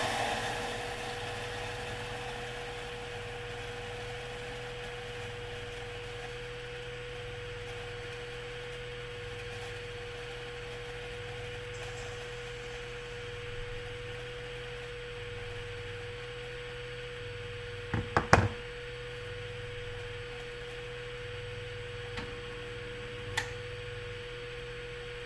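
Water sizzling in a hot pan, fading away over the first couple of seconds and leaving a steady electrical hum with a slow on-off pulse beneath it. A quick cluster of sharp clicks comes about eighteen seconds in, and two single clicks near the end.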